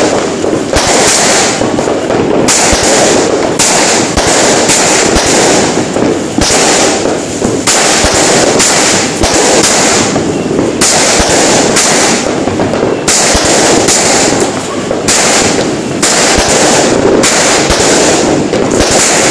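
Fireworks going off close by in a continuous, dense crackle of pops and bangs, loud throughout.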